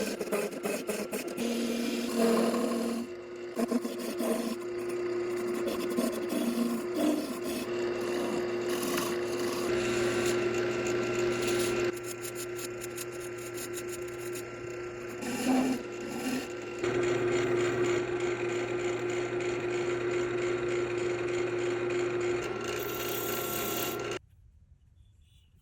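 Wood lathe running with a steady motor hum while the spinning cherry blank is worked, in spells of rasping and rubbing. The sound cuts off suddenly about a second before the end.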